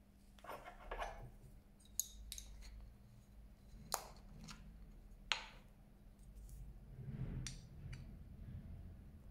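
Glass oil bottles and a metal spoon being handled on a tabletop: a soft rustle at first, then three sharp clicks and clinks spread over the middle, with quieter knocks of handling near the end.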